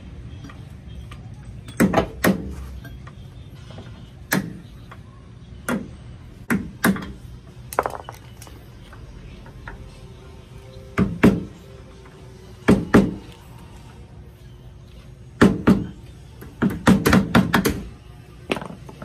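Hammer blows knocking on a van's door-hinge pin and bushing to drive the worn old bushing out: irregular metal knocks, often in pairs, with a quick run of strikes near the end.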